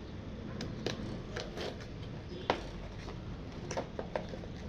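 Packaging being handled while a small microphone is worked out of its box: scattered light clicks, taps and rustles, one sharper click about halfway through.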